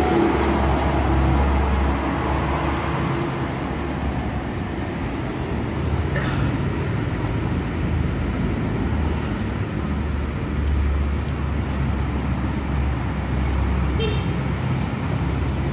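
Faint light metallic clicks as a motorcycle's rocker arms are rocked by hand on the open cylinder head, checking the rocker arm bearing for play, over a steady low rumble of traffic.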